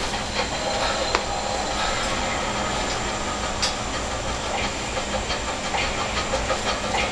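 Steady hiss and low hum of a food-stall kitchen, with a few light clicks and taps from handling.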